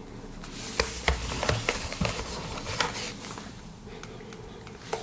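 Small cardboard product boxes being handled: a run of light taps, clicks and rustles over the first few seconds, then only faint room tone.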